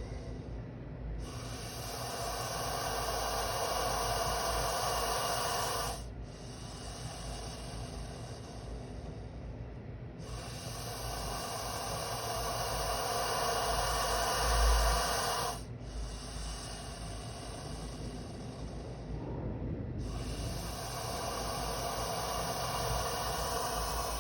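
A snake hissing in long drawn-out breaths, one after another, each lasting about four to five seconds with brief gaps between: an agitated, defensive snake. A dull low bump comes about two-thirds of the way through.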